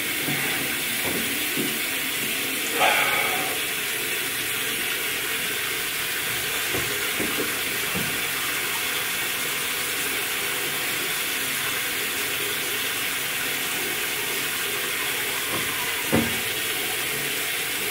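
Bathroom tap running steadily into the sink while a person brushes their teeth with a toothbrush. There is a short louder sound about three seconds in, and a knock near the end.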